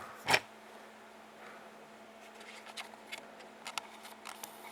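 Small plastic clicks and taps as the scissor-hinge pieces of a laptop key are handled and fitted onto the keyboard: one sharper click just after the start, then scattered faint ticks.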